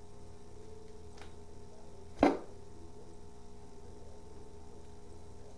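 Steady low electrical hum, with a single short knock about two seconds in and a faint click about a second in.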